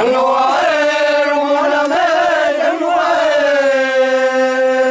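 Ollo Naga men chanting in unison, breaking into one long, loud note together and holding it at a steady pitch.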